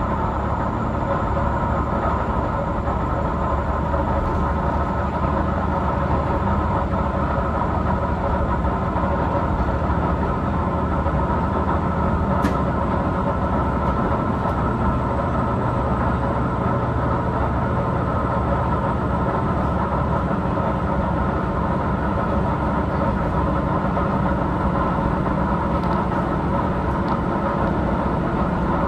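Diesel railcar of the Tenryu Hamanako Railroad running steadily on the line: the engine and the wheels on the rails heard from inside the car, at an even level, with one brief sharp click about twelve seconds in.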